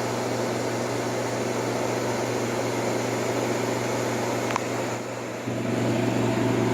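1958 Carrier 4,500 BTU window air conditioner running in cooling mode: its shaded-pole fan motor blowing air over a steady low compressor hum. A small click about four and a half seconds in, and the sound dips briefly just after before coming back.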